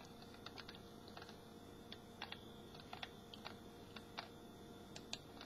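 Faint, irregular clicking of computer keyboard keys being typed on.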